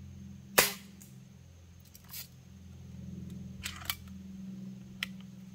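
Custom Daisy BB rifle firing once, a sharp crack about half a second in, followed by a few faint clicks. Nearly four seconds in, a quick double clack as the rifle is cocked for the next shot.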